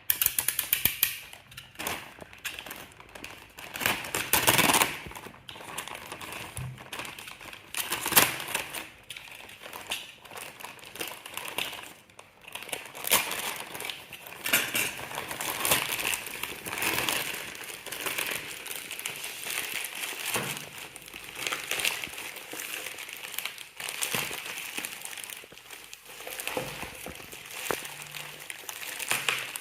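Packaging being handled and opened: plastic and cardboard crinkling and rustling, with scattered irregular clicks and knocks.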